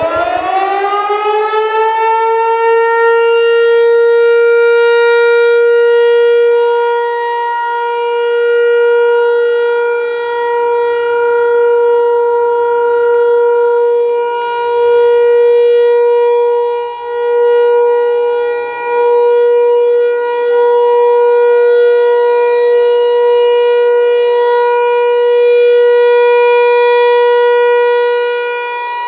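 American Signal Tempest T-128 rotating electromechanical warning siren winding up over the first few seconds, then holding one steady tone, the Alert signal. Its loudness swells and fades as the horn turns toward and away.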